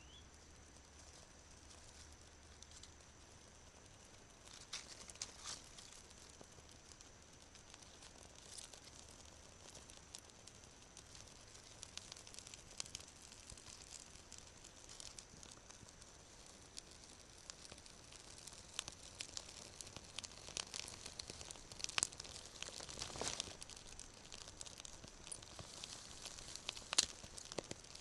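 A small kindling fire of birch bark and thin twigs catching and crackling, with the crinkle of bark and sharp snaps of sticks as it is fed by hand. The crackles and snaps grow busier in the second half, with the loudest snaps near the end.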